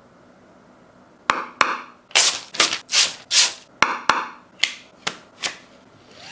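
Packaging of a collectible coin being handled and opened: a string of sharp clicks and taps mixed with short sliding, rubbing swishes, starting about a second in and ending shortly before the close.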